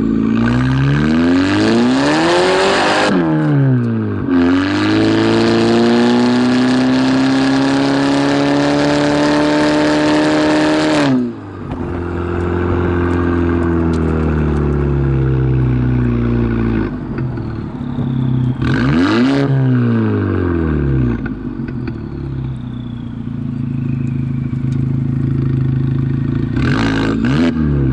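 Audi A4 1.8T's turbocharged four-cylinder engine revving through an aftermarket valved exhaust. A quick rev up and down, then a long climb held for several seconds that drops off sharply about eleven seconds in, followed by shorter blips around nineteen seconds and near the end.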